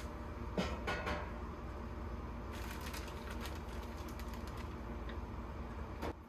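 Light clicks and rustling of hands handling small objects, in clusters about half a second in and again in the middle, with one sharper click near the end, over a steady low hum.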